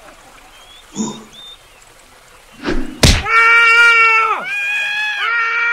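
A sudden whoosh ending in a hard knock, followed by a person wailing in three long, loud, held cries, each dropping in pitch as it runs out.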